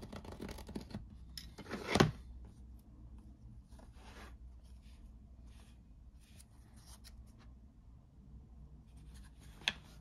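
Craft knife slicing through formed leather along the edge of a plastic mold, a scraping cut over the first two seconds that ends in a loud snap about two seconds in. Softer handling rustles of the leather pieces follow, and a sharp tap comes near the end.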